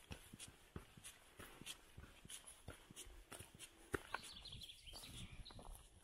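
Faint woodland ambience with scattered soft clicks and crackles. A brief high twittering call comes about four seconds in.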